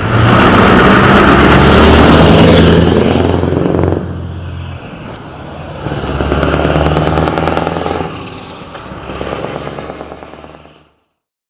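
Scania R620's V8 diesel engine running as the truck drives past, loud for about four seconds, then falling away and swelling twice more before it cuts off near the end.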